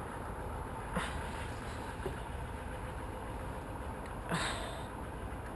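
A steady low motor hum, with one sharp knock about a second in and a short rustling scrape about four seconds in.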